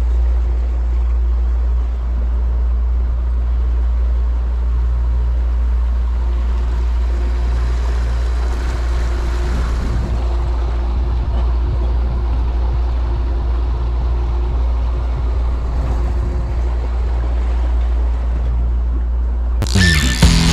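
Suzuki outboard motor running steadily at trolling speed, with the boat's wake rushing behind. Music comes in suddenly near the end.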